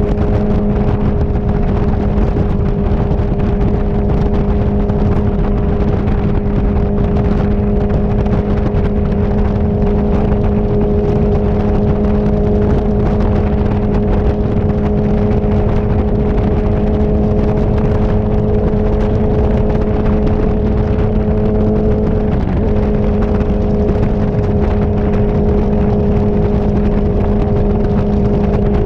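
Inline-four sport motorcycle engine holding a steady cruising note at highway speed, under heavy wind rush on the bike-mounted microphone. The engine pitch wobbles briefly about three-quarters of the way through.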